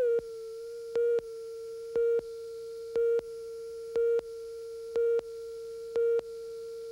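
Broadcast videotape countdown leader tone: a steady mid-pitched tone that jumps louder in a short beep once a second, in step with the countdown.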